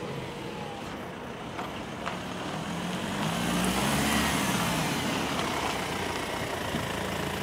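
BMW 1 Series hatchback driving up and turning in close, its engine and tyres growing louder to a peak about four seconds in, with a brief rise and fall in engine pitch, then easing off.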